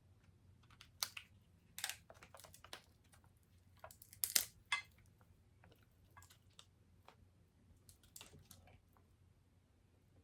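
Close-miked mouth sounds of a person eating: irregular wet clicks and smacks of chewing, loudest about four seconds in, trailing off near the end.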